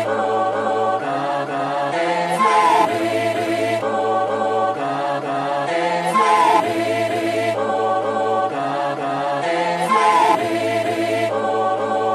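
Background music: a sustained choir-like vocal pad singing repeating phrases of about four seconds, with no beat.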